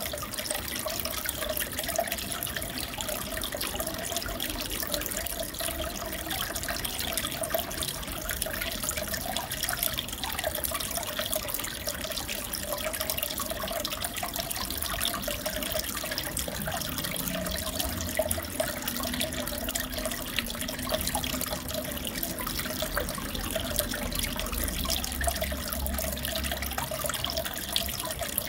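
Aquarium water trickling and bubbling steadily, with fine crackling pops throughout.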